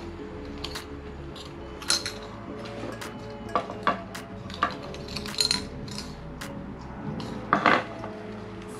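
Sharp clicks and light metallic clinks, irregular and about one to two a second, as a SOTO gas lighter is clicked at a small gas-canister lantern to light it. The loudest pair of clicks comes near the end.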